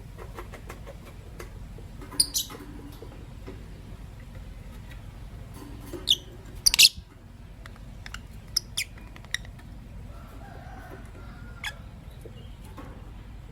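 Masked lovebirds giving short, sharp, high-pitched chirps in scattered bursts. There are two about two seconds in, the loudest cluster around six to seven seconds in, and a few fainter chirps later, over a steady low background hum.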